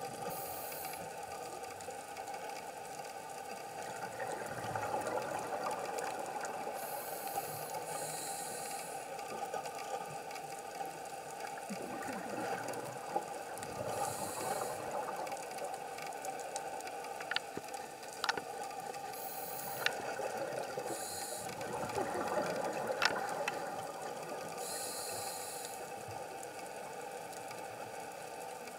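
Underwater sound from a diver's camera: a scuba regulator hissing with the diver's breaths every few seconds over a steady hum, with a few sharp clicks.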